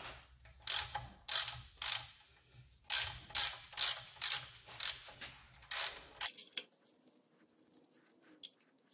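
Wrench turning a fitting off an outboard's VRO oil-injection pump: a run of short ratcheting clicks, about two a second, stopping about six seconds in.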